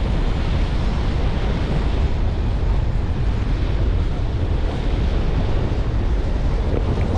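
Steady wind buffeting the microphone, with ocean surf beneath.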